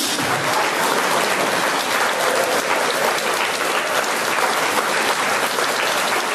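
Audience applauding steadily at the end of a performance: a dense, even clatter of many hands clapping.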